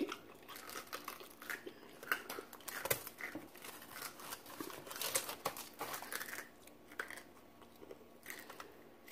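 Close-up eating sounds of crispy fried chicken: breaded skin crackling and crunching as it is bitten, torn and chewed, in irregular small snaps that thin out near the end.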